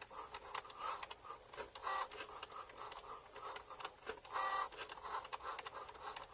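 Cricut Joy cutting machine cutting vinyl on its mat: its motors whir in short, irregular bursts as the blade and mat move, with a longer burst about four seconds in and light ticks between.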